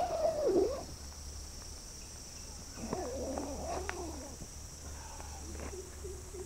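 Steady high-pitched insect chorus, like crickets, with a couple of lower wavering calls about a second in and around three to four seconds in.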